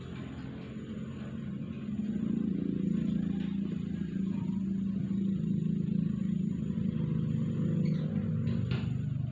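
An engine running with a low, steady hum that gets louder about two seconds in and then holds; two faint clicks near the end.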